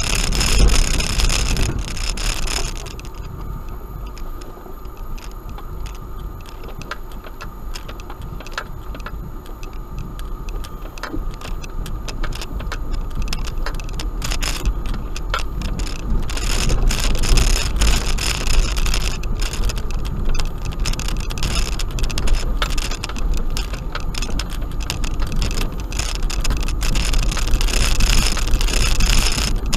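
Suzuki Grand Vitara driving along a rough, rutted gravel track, heard from inside the cabin: a steady low engine and tyre rumble with frequent clicks and rattles from stones and loose cabin fittings. It drops quieter about three seconds in, then gradually builds back up.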